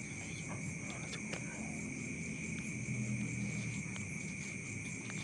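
Steady background trilling of crickets or similar insects, several high unbroken tones at once, over a faint low hum, with a few light ticks.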